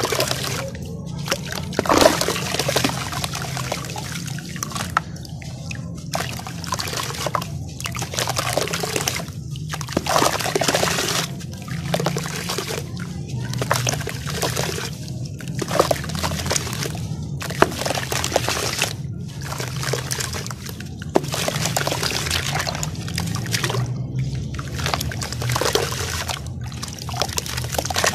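Dry sand and crumbled bits of a sand-cement chunk pouring from the hands into a tub of water, in repeated rushes of trickling and splashing with short pauses between; near the end, hands squishing the wet sand into mud.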